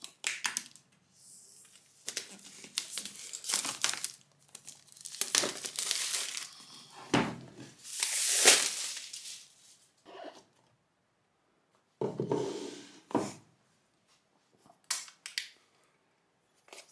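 Plastic shrink-wrap being torn and peeled off a laptop box, crinkling in repeated bursts with short pauses, loudest about halfway through.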